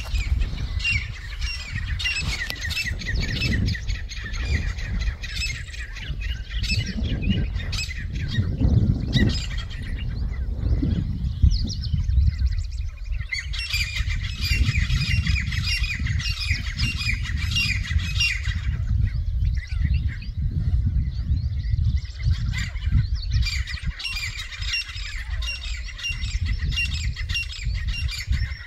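A group of francolins (titar) squawking and calling over one another in dense waves: rival flocks squabbling over territory. A low rumble runs underneath.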